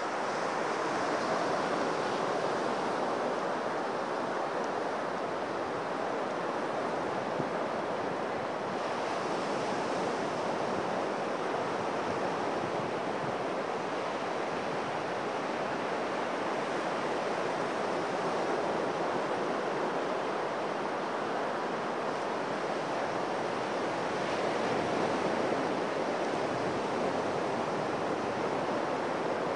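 Ocean surf breaking and washing up a sandy beach, a steady rush of waves with no clear lulls.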